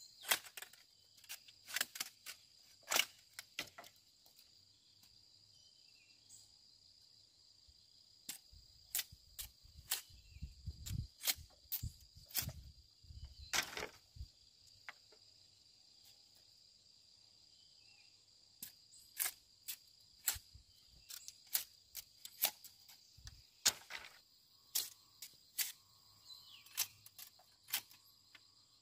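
Irregular sharp snaps and clicks in clusters, with some low thumping in the middle, over a steady high-pitched drone of insects.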